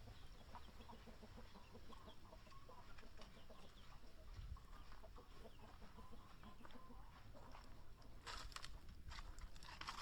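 Faint chickens clucking in the background, with a few soft clicks near the end.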